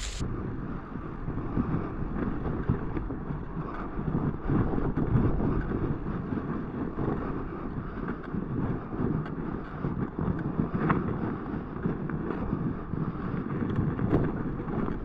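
Wind buffeting an action camera's microphone while a fat bike rides over snowy, rutted ground: a low, uneven rush with a few faint clicks.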